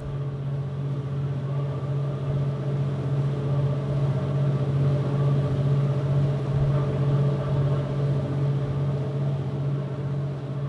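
Steady low drone of a boat's engine heard across the water, holding one constant pitch with no change in speed.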